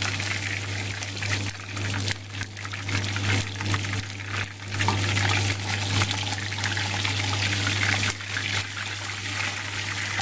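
Whole fish shallow-frying in hot oil in a pan: steady sizzling with dense crackling, the fish frying crisp.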